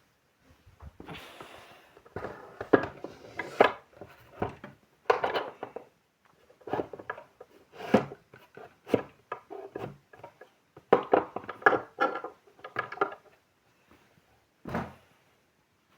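Small items on a dressing table being picked up, shuffled and set down: a run of clicks, clinks and knocks, with short clattering clusters and a single knock near the end.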